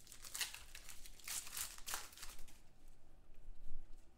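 The foil wrapper of a 2016 Unparalleled Football card pack crinkling as it is torn open and handled. There is a quick run of crackles over the first couple of seconds, then quieter rustling.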